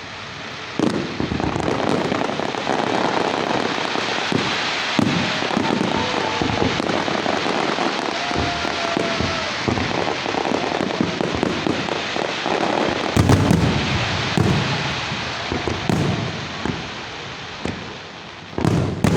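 Fireworks display: a dense, continuous crackle of many small bursts, with sharper bangs about two-thirds of the way in and again near the end.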